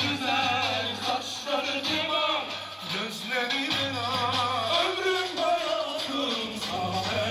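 Lively dance music with a wavering lead melody over a steady low accompaniment.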